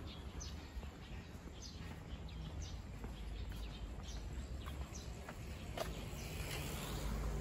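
Footsteps on a paved path, a short tick about once a second, over a steady low outdoor rumble.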